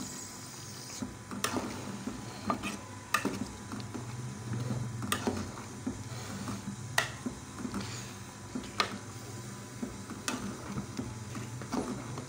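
A spoon stirring a pot of boiled noodles and vegetables, with soft scraping and a sharp clink against the metal pot about every one and a half to two seconds, as the masala is mixed in. A low steady hum runs underneath.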